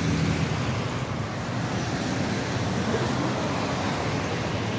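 Steady road traffic on a rain-wet street: cars passing, their engines and tyres on the wet pavement making a continuous noise.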